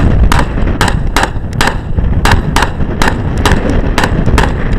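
Rapid semi-automatic gunfire, about a dozen shots at a fast, uneven pace of two to three a second. Heavy wind buffets the microphone throughout.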